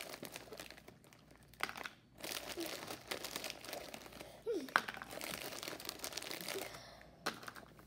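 A bag of Flamin' Hot Cheetos crinkling as a hand rummages inside it for chips, in stretches with short pauses between.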